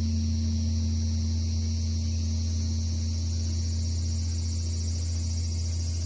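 Large Korean Buddhist temple bell (beomjong) humming after a strike from its wooden striker log: a deep steady drone with a fainter higher tone above it, fading slowly.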